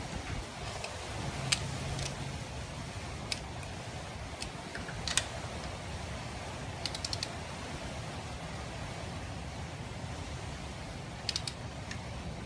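Light clicks and taps of a hex key working a frame slider's mounting bolt. Some come singly and some in quick runs of three or four, over a steady low hum.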